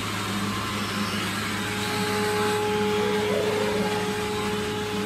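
Small E88 toy quadcopter drone in flight, its motors and propellers giving a steady buzzing whine. A steadier, higher whine joins about two seconds in.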